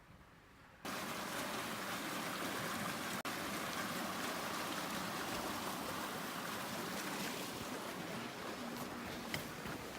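Creek water rushing steadily, starting suddenly about a second in.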